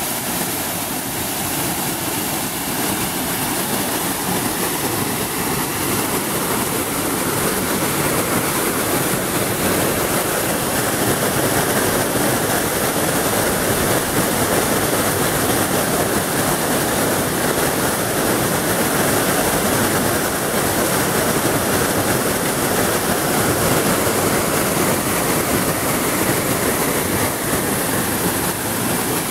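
Waterfall pouring into a plunge pool at close range: a steady rush of falling and splashing water.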